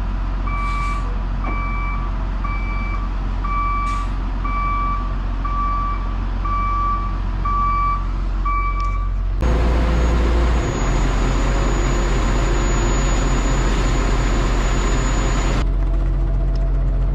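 A heavy machine's engine running steadily, with a backup alarm beeping about ten times in the first half. About halfway through the sound cuts to the engine louder and hissier, then cuts again near the end.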